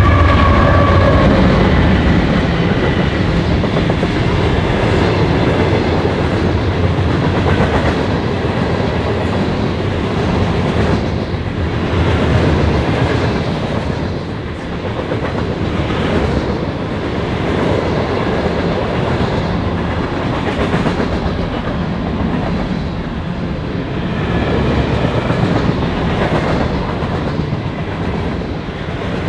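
Freight cars of a long train rolling past close by: a steady rumble of steel wheels on rail with irregular clickety-clack over the joints. A low diesel locomotive drone fades out in the first second or so.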